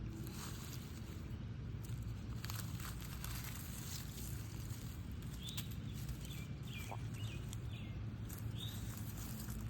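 Outdoor backyard ambience: a steady low rumble, with scattered small clicks and rustles of digging in damp soil, and a few short bird chirps in the second half.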